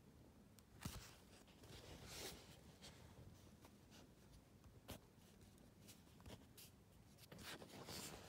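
Near silence in a small room, broken by a few faint clicks and soft rustles of handling: a phone and a paper map being held and moved.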